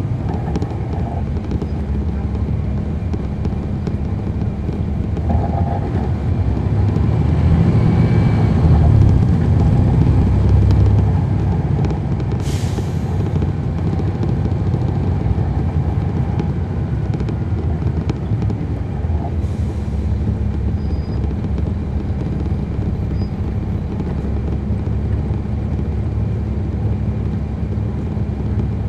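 A NABI 40-foot transit bus's Cummins ISL9 diesel engine, heard from the rear seats inside the bus. It runs with a steady low rumble that grows louder for a few seconds in the first half as the bus pulls away, then settles. A short hiss of air comes just under halfway through, and a fainter one a few seconds later.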